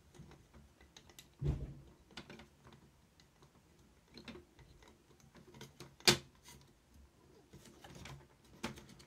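Light plastic clicks and knocks from a cassette deck's plastic door cover being handled and pushed onto its door frame, with a dull knock about one and a half seconds in and a sharp click about six seconds in.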